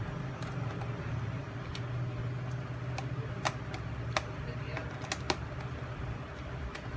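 Dell XPS L502x laptop keyboard being pried out with a thin screwdriver: a series of sharp, irregular plastic clicks as its retaining clips let go, over a steady low hum.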